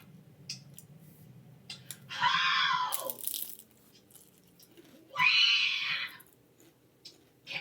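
Two loud crunches of nacho tortilla chips being bitten and chewed close to the microphone, about three seconds apart, each lasting about a second.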